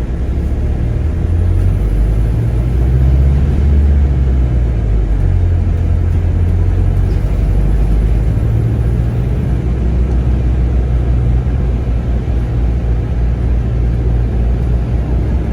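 Low, steady rumble of a bus's engine and road noise, heard from on board the moving bus.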